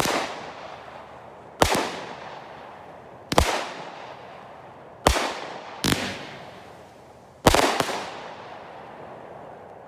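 AFW Spring Lightning 25-shot firework cake firing willow shells: a sharp bang about every one and a half seconds, some in quick pairs, each dying away slowly.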